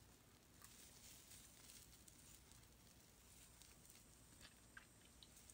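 Near silence, with faint scattered rustles and small ticks of a metal crochet hook working fuzzy scrubber yarn through a stitch.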